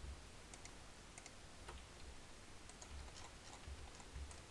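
Faint, scattered clicks of a computer mouse and keyboard over a low hum.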